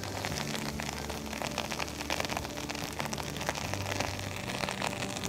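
Shad roe frying in hot bacon grease in a cast-iron skillet, sizzling with many sharp pops and spatters as the roe is turned with a metal spatula. The wet eggs in the roe make the grease pop.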